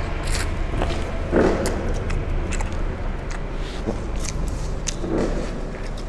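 People eating noodles straight from their plates with their mouths: chewing, slurping and many small wet clicks, with two louder mouth noises about a second and a half in and near the end, over a steady low hum.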